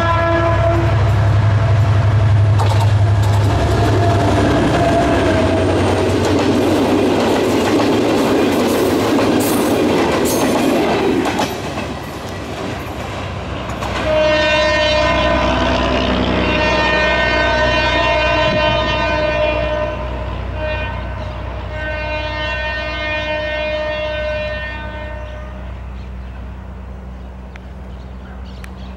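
GT22 diesel locomotive's air horn finishing a blast as it approaches, then the locomotive and CNR coaches passing close by with a loud rumble and rail-joint clickety-clack. About halfway through the horn sounds again in two long blasts as the train runs away, and the sound fades.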